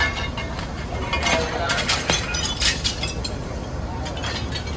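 Window glass breaking and shattering: a run of sharp crashes and clinking pieces, over a steady low rumble.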